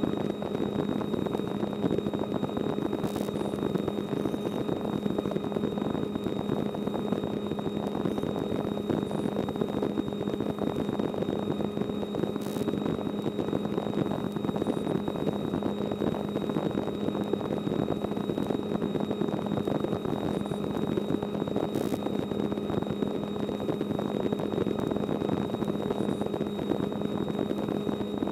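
Steady cabin noise of a small helicopter in cruising flight: an even engine and rotor drone with a thin high whine over it.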